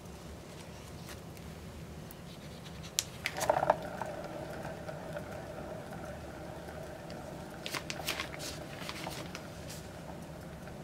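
A few sharp clicks and knocks as a painting turntable is set going, then a steady whine as it spins the wet acrylic-pour canvas, with another short run of clicks a few seconds later.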